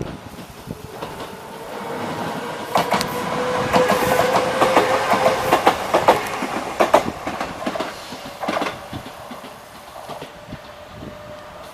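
Enshu Railway electric train passing over a level crossing, its wheels clacking over the rail joints with a steady whine. The sound builds, is loudest about four to seven seconds in, then fades.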